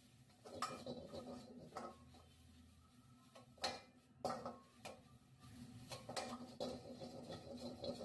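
Metal cooking utensil clattering and knocking against a pan, about a dozen irregular strikes with a short metallic ring, as in stir-frying or serving fried rice.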